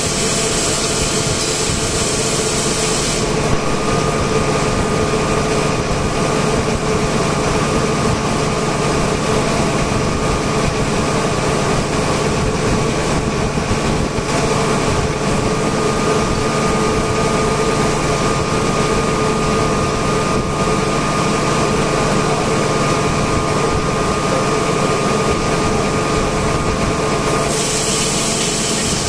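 Air compressors running in a compressor room: a steady machine hum with several held tones. A high hiss stops about three seconds in and comes back near the end.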